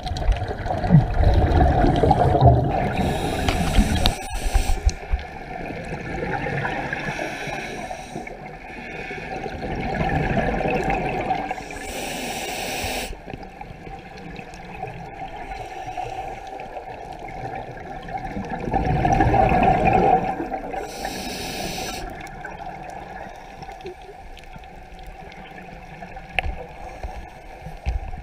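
Scuba diver breathing through a regulator underwater: long bubbling exhalations alternating with short hisses of inhaled air, about one breath every nine seconds.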